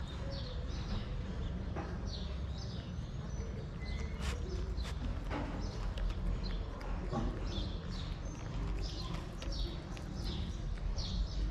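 Cat chewing and crunching dry kibble close by, in quick repeated crunches about two or three a second, over a low steady rumble.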